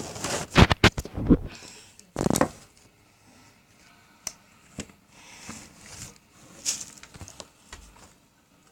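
Handling noises: a quick cluster of clicks and knocks about a second in, a short rustle just after two seconds, then scattered light clicks and rustles as things are moved about close to the microphone.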